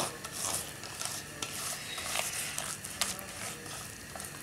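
A hand squeezing and stirring a thick, wet spice paste in a stainless steel bowl. The paste makes irregular soft squelches, and there are light clicks against the bowl.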